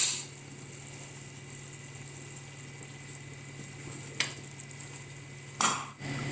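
A spoon knocking against a metal cooking pot three times, the last knock the loudest, as cooked rice is layered into it, over a steady low kitchen hum with a faint hiss.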